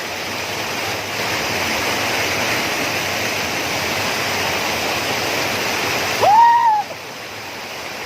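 Waterfall rushing steadily, an even hiss of falling water at a time when its flow is low. About six seconds in, a short pitched call rises and holds briefly over the water.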